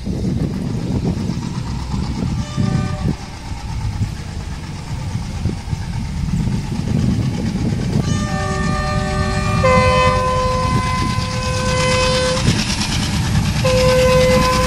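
Train horn sounding in long, steady blasts from about halfway through, over the continuous low rumble of a train running on the track.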